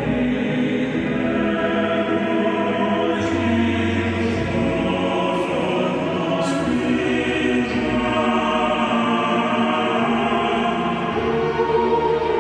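Choral music: a choir singing long, held chords over a steady accompaniment.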